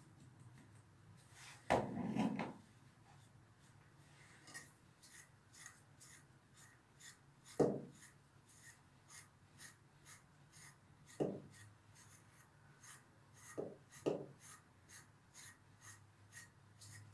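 Slicker brush raking through a dog's long coat in short, even strokes, about two a second, with a few duller knocks in between.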